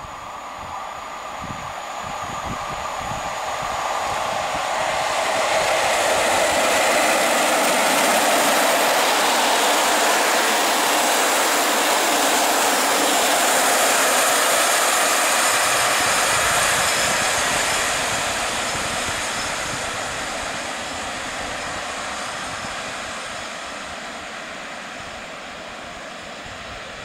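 PKP InterCity passenger train hauled by an EP07 electric locomotive passing through at speed. The rumble and clatter of wheels on rail builds over the first few seconds, stays loud while the coaches go by, then fades steadily as the train moves away.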